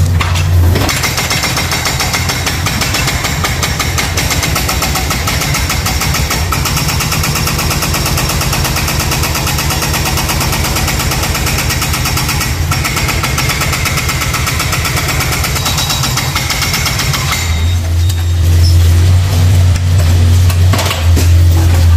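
Yanmar mini excavator's diesel engine working under load, with a fast, even rattle, while its hydraulic crusher attachment works at broken concrete. About seventeen seconds in the rattle stops and a deep, steady engine hum takes over.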